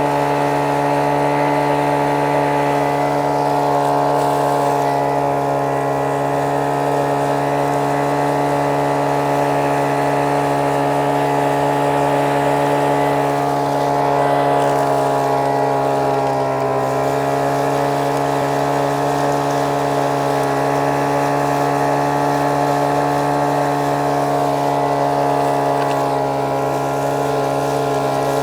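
Small gasoline engine of a vac pac gold-prospecting vacuum running steadily while the hose sucks up loose desert gravel and sand. Its pitch dips briefly about sixteen seconds in.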